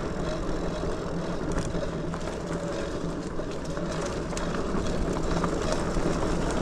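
Lectric XPeak 2.0 electric bike riding along: the rear hub motor hums steadily, mixed with a continuous rumble of tyres rolling over the trail and small scattered clicks.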